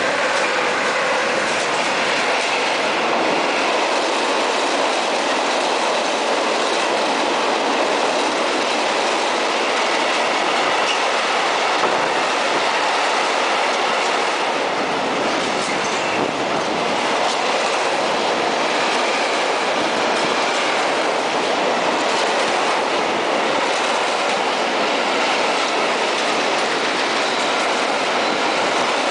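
Covered goods wagons of a freight train rolling past at speed close by: a steady, loud rush of wheel and rail noise that holds at an even level throughout.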